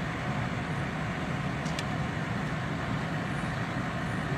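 Steady low rumbling noise, with one short sharp click about a second and a half in.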